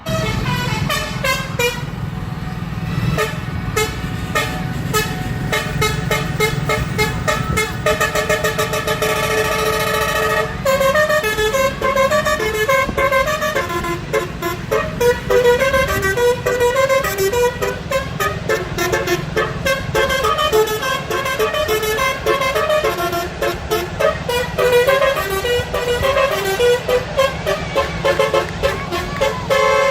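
PKP Intercity train horn sounding a string of pitched notes that jump quickly from pitch to pitch like a jokey tune, with one long held note from about 8 s to about 10 s that cuts off sharply. A steady low rumble runs underneath.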